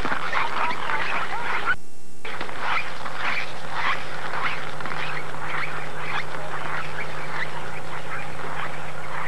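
Footsteps in ski boots squeaking and crunching on cold, packed snow, two to three steps a second. The sound drops out briefly about two seconds in, and a steady low hum joins about four seconds in.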